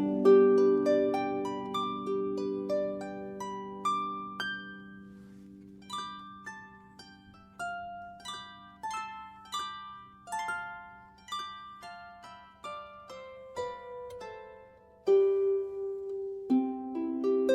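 Solo harp playing a slow melody of single plucked notes that ring on over a held low note. Louder, fuller chords come in near the end.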